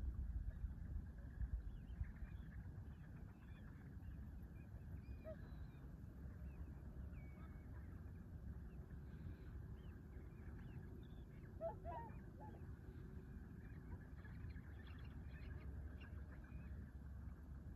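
Marsh ambience of scattered faint bird calls: many short, high chirps throughout and, about twelve seconds in, a clearer, lower call of two or three notes, over a low steady rumble.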